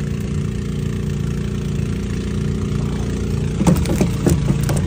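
Fuel-burning engine-driven water pumps running steadily while draining a large tidal pit. A few brief knocks near the end.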